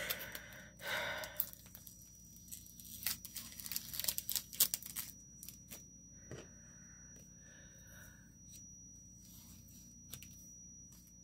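Packaging being handled: rustling and tearing with scattered small clicks and crinkles, busiest in the first half, then fainter.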